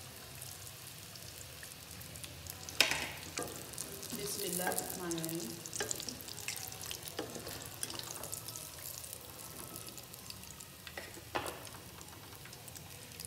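Hot oil sizzling around chicken pieces in a pan, with scraping and sharp knocks as a wire skimmer and a wooden spatula press the pieces against the pan to drain the oil. The loudest knock comes about three seconds in, and another near the end.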